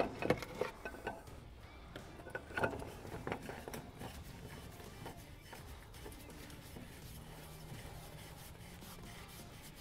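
Gloved hand turning a spin-on engine oil filter as it threads onto its housing, with light rubbing, scraping and a few clicks in the first few seconds, then only faint handling sounds.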